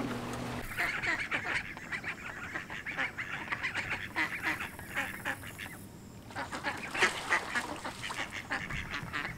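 Waterfowl calling: a rapid run of short repeated calls with a brief pause about six seconds in. A boat motor's steady hum cuts off within the first second.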